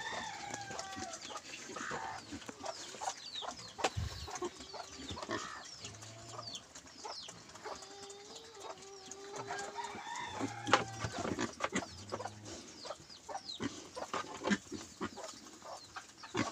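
Chickens clucking and chirping in many short, quick calls, mixed with scattered sharp knocks and scuffs.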